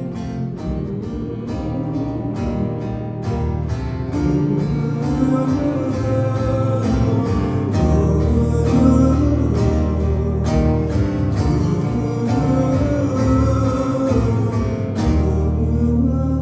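Acoustic guitar strummed live, with a man singing over it; the playing grows fuller and a little louder a few seconds in.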